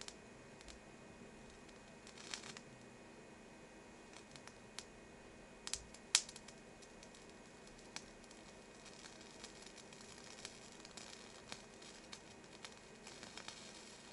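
Paper burning in a candle flame: faint, irregular crackling with a few sharp clicks, the loudest about six seconds in.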